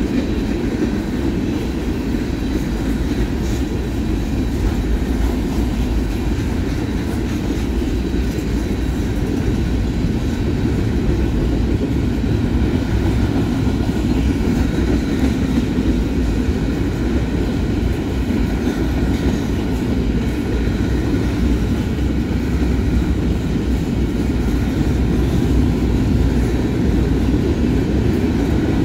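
Freight train of covered hopper cars rolling past: a steady low noise of wheels running on the rails.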